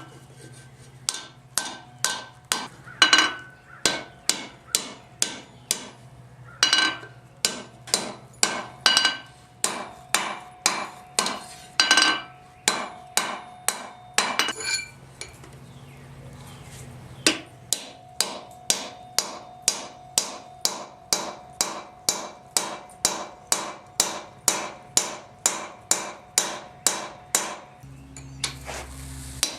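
Hand hammer striking hot steel on an anvil in a steady rhythm of about two blows a second, each blow with a short metallic ring, drawing down the tong stock. The hammering stops briefly twice, about five seconds in and again around fifteen seconds in.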